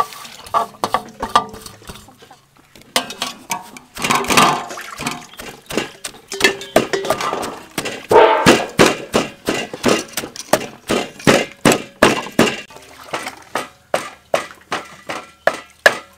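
Wooden pestle pounding chopped greens in a clay mortar: a steady run of dull strikes, about two to three a second. Near the start the metal tray clinks against the mortar rim as the greens are scraped in.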